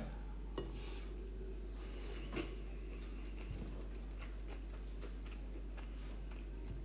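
Quiet room tone with a steady hiss and low hum, broken by a couple of faint clicks of eating, about half a second in and again near two and a half seconds, as a mouthful is chewed.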